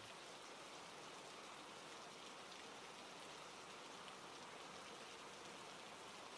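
Near silence: a faint, steady hiss of ambient room tone.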